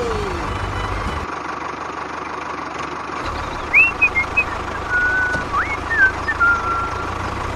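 Steady mechanical running noise of a small motor, as of the toy tractor's drive, with a low rumble that drops out for a couple of seconds near the start. From about four seconds in, a scatter of short, high, bird-like chirps and whistles.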